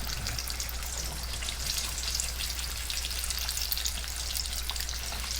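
Whole breaded perch sizzling in hot frying oil, a steady dense crackle with many fine pops. A low steady hum sits underneath.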